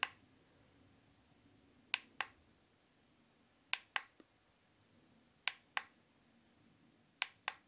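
Push button on top of a Holife digital alarm clock clicking four times, each press a quick double click, as the dimmer steps the display's brightness.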